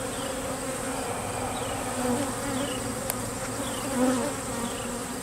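Honey bees buzzing in a steady, dense hum around an opened hive, the colony stirred up by the inspection.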